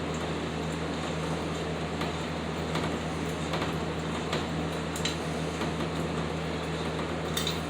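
Steady machine hum with a fan-like hiss, like an air conditioner or fan running, with a few faint clicks of parts being handled.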